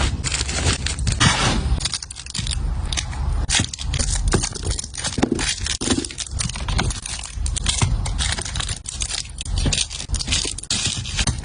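Small items being handled and put away in a rolling storage cart: a busy, uneven run of clicks, knocks, rustles and scrapes.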